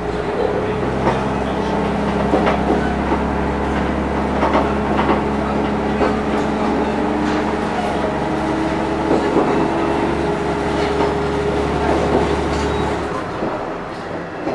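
Diesel railcar's engine running steadily under power, with scattered clicks from the wheels over rail joints. About a second before the end the engine's low hum drops away, as when the throttle is shut off and the train coasts.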